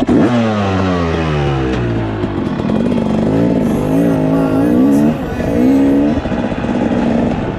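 Yamaha WR250F dirt bike's 250 cc four-stroke single-cylinder engine running under way, its pitch falling over the first two seconds, then rising and falling several times as the throttle opens and closes.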